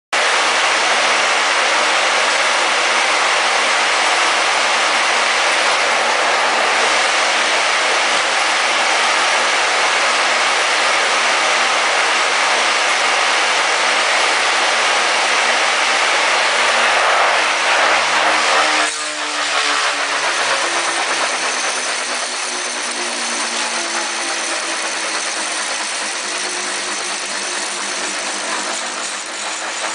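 Electric motors and spinning rotors of a homemade rotating-mass rig running with a loud, even whirring noise. About 19 seconds in the noise drops and gives way to a lower hum that slides down and back up in pitch as the whole assembly turns on its base.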